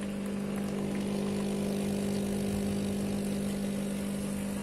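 ACA espresso machine's pump running with a loud, steady buzzing hum, as it pushes water through the group head into a bowl; the machine is working normally again after repair.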